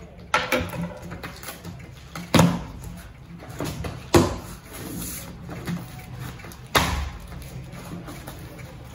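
A taped cardboard shipping carton being torn open by hand: four sharp rips as tape and flaps are pulled apart, each tailing off quickly, with softer rustling and handling of the cardboard between them.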